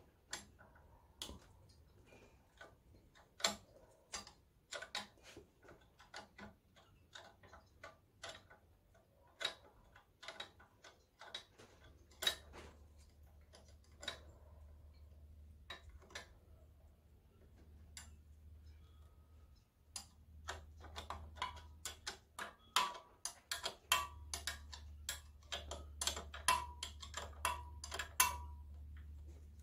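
Irregular metal clicks and light clinks of a hand tool working on the mounting of an IHC Type L magneto, coming thicker and ringing slightly toward the end. A steady low hum comes in about twelve seconds in.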